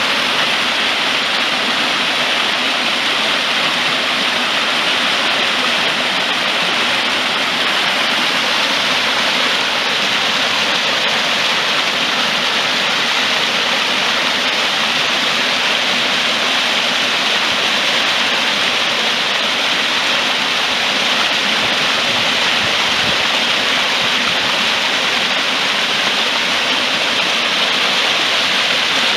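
Hill stream running: a steady, even rush of flowing water.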